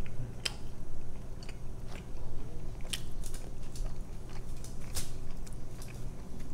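Close-miked chewing of a mouthful of pizza: wet mouth sounds broken by scattered sharp, crunchy clicks.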